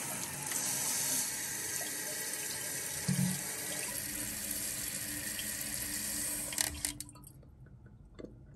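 Water hissing steadily into a toilet tank through a newly fitted Fluidmaster fill valve after the supply is turned on, with a brief low knock about three seconds in. The rush of water stops about seven seconds in.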